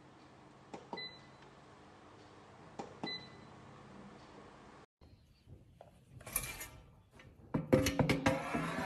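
Xiaomi Mijia smart air fryer's control knob clicking and beeping twice as it is pressed, two short high beeps about two seconds apart over a faint steady hum. In the last few seconds, louder irregular clattering.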